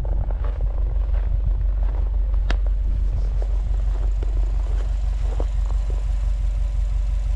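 Subaru WRX STI's boxer flat-four engine idling steadily with an even low rumble, with one sharp click about two and a half seconds in.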